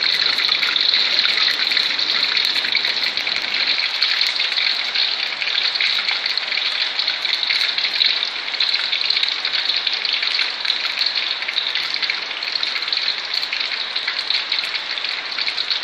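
Tofu blocks deep-frying in hot oil in a wok: a steady, dense sizzle with fine crackles that eases slightly in the second half. The tofu is still pale, not yet browned.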